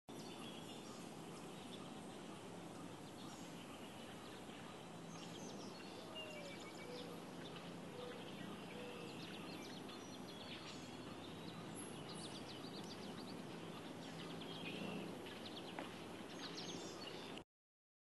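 Faint outdoor ambience with scattered bird chirps and calls over a steady hiss, cutting off suddenly near the end.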